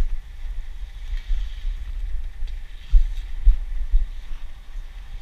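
Wind buffeting the microphone: an irregular, gusting low rumble with a faint steady hiss above it.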